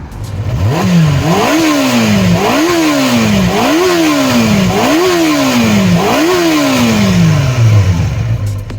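Yamaha FZ400R's inline-four engine revved six times with the throttle, each rev climbing quickly and dropping back more slowly, then settling back to idle near the end.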